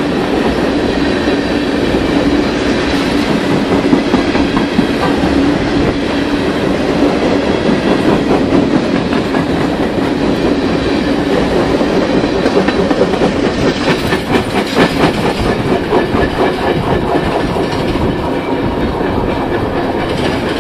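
Freight train of tank cars rolling past at close range: steel wheels rumbling and clacking over the rail joints. A steady hum runs through the first two-thirds, and the clacking rhythm stands out more plainly over the last several seconds.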